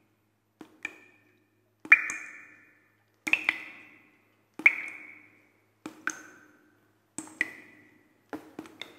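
Intro-animation sound effect: a series of short pings, each a sharp click with a brief high ringing tone that dies away quickly, repeating about every second and a half, about seven in all.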